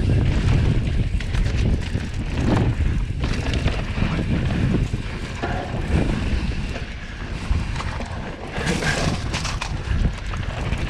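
Transition Scout 2020 mountain bike descending a dirt trail: wind buffeting the microphone over tyres rolling on loose ground, with frequent knocks and rattles from the bike over bumps. A louder scraping rush about nine seconds in.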